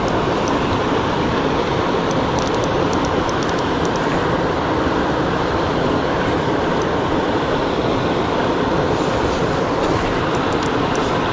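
Steady rushing of river water, with a few light clicks in two short clusters.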